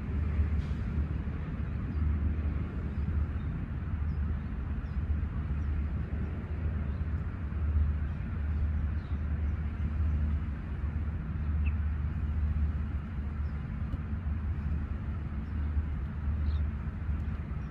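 Steady low outdoor rumble, with a few faint high chirps now and then.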